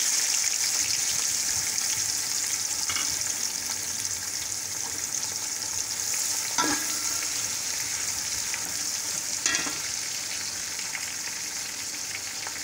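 Chopped onions sizzling in hot oil with whole spices in a pot, stirred with a steel slotted spoon; the sizzle slowly dies down, and three short knocks sound about three, seven and nine and a half seconds in.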